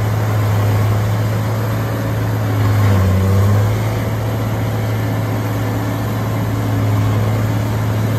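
Tub grinder's diesel engine running steadily under load as it grinds hay, its note dipping briefly about three seconds in.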